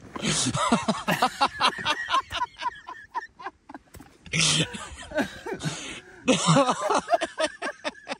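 A man's breathless, excited laughter in three spells of quick breathy pulses.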